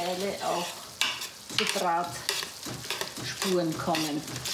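A spatula scraping across a roasting tray in repeated strokes, turning and tossing roast vegetables that sizzle in the hot oven.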